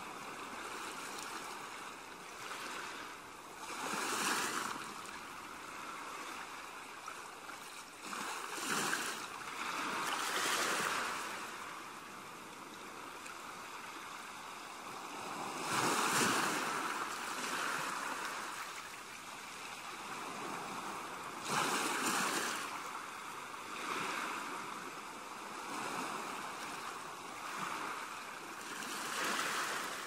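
Ocean waves breaking on a beach: a steady wash of surf that swells into a louder surge every few seconds as each wave comes in, then eases off.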